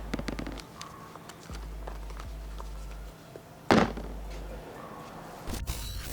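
A heavy thud right at the start and another about four seconds in, with scattered small clicks and knocks between them.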